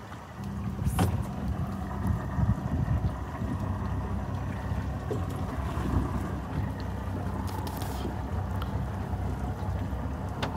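A boat's engine idling with a steady low hum, with wind buffeting the microphone.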